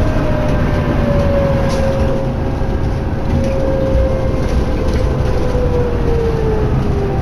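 Cabin noise inside a 2011 New Flyer D60LFR articulated diesel bus under way: a steady low rumble of engine and road, with a drivetrain whine that slowly drops in pitch near the end.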